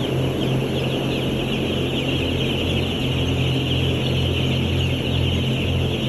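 A large flock of three-day-old broiler chicks peeping continuously, many high chirps blending into one dense chorus, over the steady low hum of the shed's exhaust fans.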